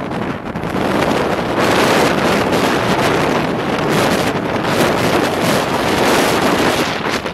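Wind rushing over the microphone, mixed with road and tyre noise from a car driving at highway speed, as a steady loud rush.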